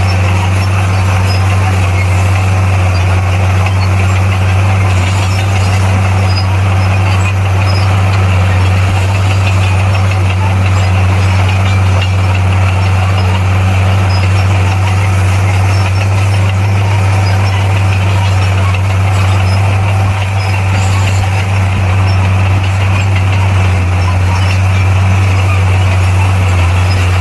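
Bulldozer's diesel engine running at a steady speed, a constant low drone that holds its pitch throughout.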